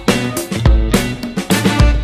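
Background music with a steady beat and plucked notes.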